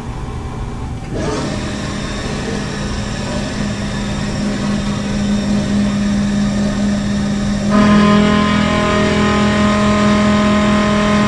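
Haas TM-1 toolroom mill spindle starting about a second in and running steadily at about 2,500 rpm with a steady hum. About eight seconds in, the face mill starts feeding into the top of the part, and the sound gets louder and richer with added steady tones.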